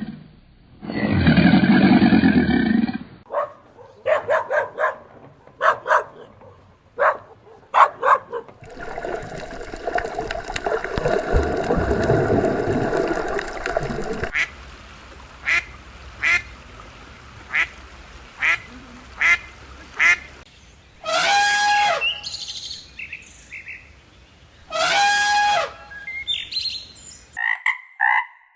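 A run of different animal calls one after another. A long, loud low call ends about three seconds in, then come short repeated calls and clicks, a noisy stretch, and two longer pitched calls near the end.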